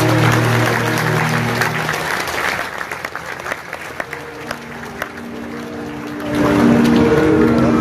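Live theatre show soundtrack heard from the audience. Held musical chords fade out over the first couple of seconds under audience applause, which thins to scattered claps. About six seconds in, the music swells back in with a new held chord and a slowly falling tone.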